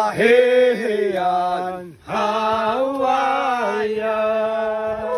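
A group singing a Tafalong Amis song in unison, men's voices leading, on long held notes with a brief break for breath about two seconds in.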